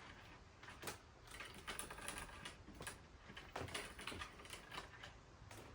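Small objects being handled and set down: quiet, irregular light clicks and taps with rustling between them.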